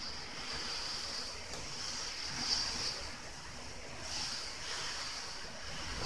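Typhoon wind and heavy driven rain: a steady rushing hiss that swells and eases with the gusts.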